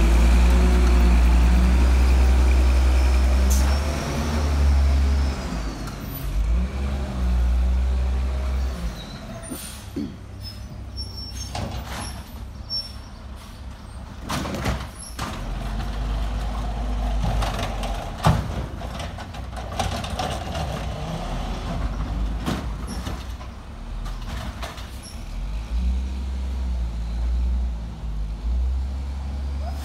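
Crane Carrier LET1 side-loader garbage truck's diesel engine running loud and low as the truck pulls away, then quieter as it moves off down the street. Several short, sharp hisses and knocks come through the middle, typical of the truck's air brakes.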